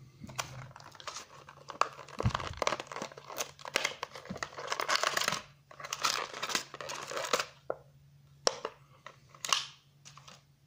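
Clear plastic blister pack crinkling and crackling in irregular bursts with sharp clicks as it is pried open by hand and a diecast toy car is pulled out of it.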